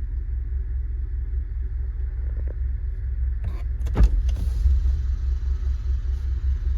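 Steady low rumble inside a 2015 Kia Soul's cabin, with the engine running and the heater blower fan on, and two short knocks about halfway through. The blower makes a noise at its higher speeds, which the owner wonders may come from a newly fitted cabin air filter or the filter's broken access door.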